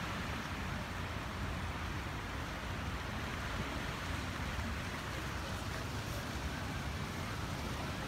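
Ocean surf washing over shoreline rocks as a steady, even rush of noise without separate crashes, over a low rumble.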